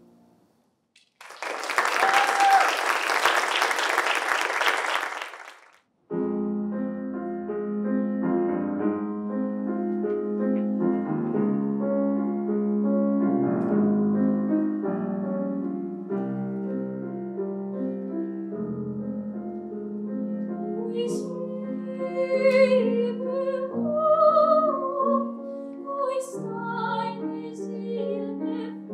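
Audience applause for a few seconds, then an abrupt break followed by a grand piano introduction. About 20 seconds in, a woman's classically trained solo voice enters, singing with the piano.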